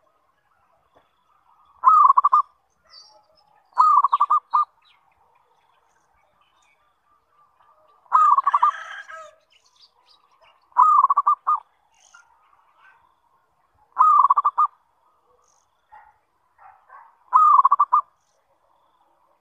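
Zebra dove (perkutut) cooing: a short, rapidly trilled phrase repeated about every three seconds, six times, some phrases ending in a separate final note.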